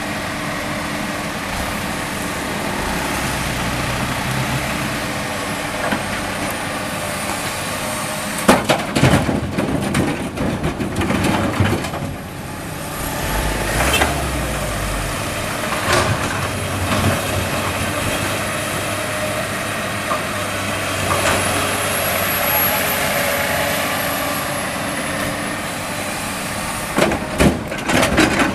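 Komatsu PC200 hydraulic excavator's diesel engine running steadily, with a high hydraulic whine that rises and falls as the boom and bucket move. Two spells of heavy rattling clatter, about a third of the way in and again near the end, as loose limestone is dumped from the bucket into the steel bed of a dump truck.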